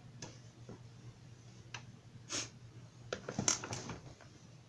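A few faint short clicks and rustles, with a cluster of them about three and a half seconds in, over a low steady hum.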